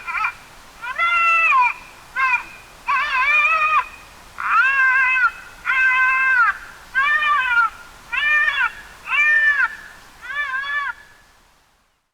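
A predator call blown or played to lure bears: about ten drawn-out, meow-like distress bleats, each rising then falling in pitch, roughly one a second, stopping about eleven seconds in.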